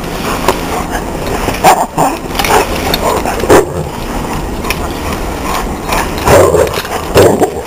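Dogs barking in rough play: a handful of short, sharp barks spaced through the stretch, over a steady low rumble.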